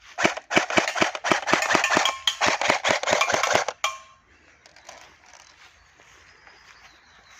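Famas F1 Evo airsoft electric rifle (AEG) firing two bursts, about two seconds and then a second and a half long, with a short break between. Sharp cracks come at roughly four a second over a continuous rattle, and each burst cuts off abruptly.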